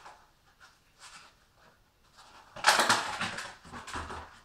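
Dense rustling and crackling from material being handled at the firebox of a wood-burning stove while a fire is laid. It comes as a loud burst of about a second and a half starting past the middle, after a few light clicks.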